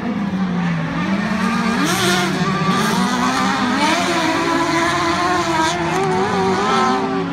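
Autocross race cars running hard round a dirt track, engines revving up, dropping back and climbing again with the gear changes.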